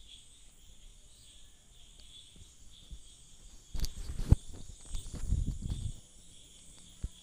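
Crickets chirring steadily in the background. About four seconds in, a few sharp knocks of the steel mixer-grinder jar against the bowl as thick batter is poured out, followed by a low soft sound of the batter sliding out, and one more light click near the end.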